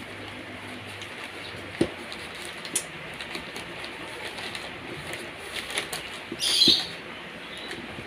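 Rustling and crinkling of a plastic bag and a cardboard box being handled and unwrapped, with a few soft knocks; the loudest crinkle comes about six and a half seconds in.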